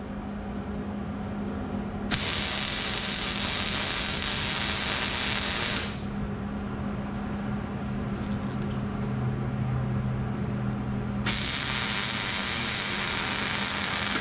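Electric arc welding a steel hook onto thin steel tubing: two runs of sizzling arc crackle, the first about four seconds long and the second starting near the end, over a steady low hum.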